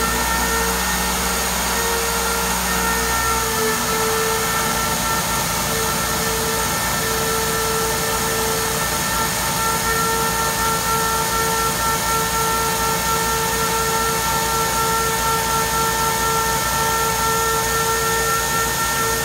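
A portable 3-axis milling machine's spindle runs with a steady whine while its cutter mills a steel plate. About three and a half seconds in, the low hum underneath turns into a fast, even rhythmic pulsing.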